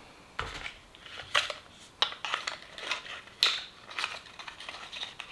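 Hands handling a small lip balm and its packaging: a run of irregular clicks and scrapes, a few each second.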